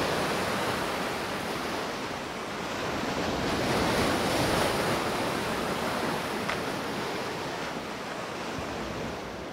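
Ocean surf: waves breaking and washing up on a sandy beach in a steady rushing wash. It swells about halfway through and fades out near the end.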